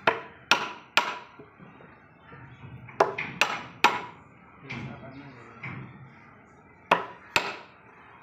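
Hammer striking the wooden handle of a chisel, cutting a mortise into a mahogany board: eight sharp strikes in three groups of three, three and two, about half a second apart.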